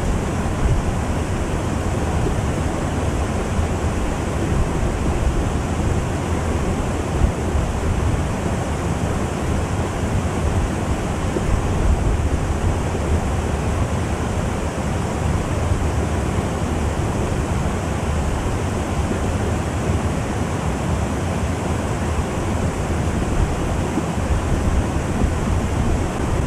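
Wind blowing across the microphone: a steady rushing noise with low buffeting.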